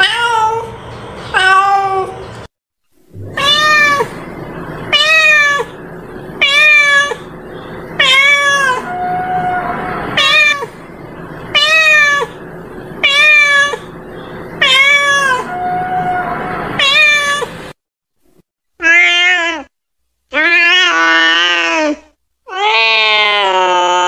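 Cats meowing. The first calls are a run of about a dozen short meows at roughly one a second, each rising and falling in pitch. After a break come a few longer meows, the last one drawn out.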